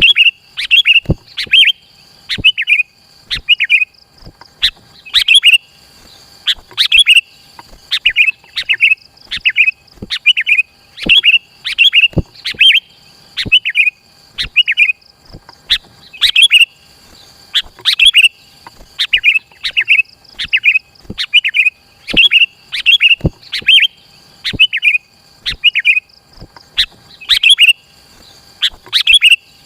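Sooty-headed bulbul (kutilang) calling busily, short bright chattering phrases repeated about once or twice a second, many starting with a sharp click.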